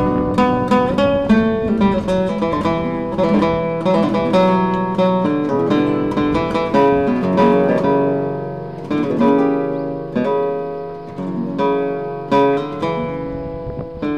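Background music: an acoustic guitar playing, with strummed chords and quick plucked notes.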